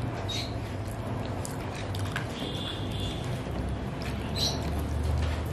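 A few short, high-pitched squeaky calls from a pet animal over a steady low hum.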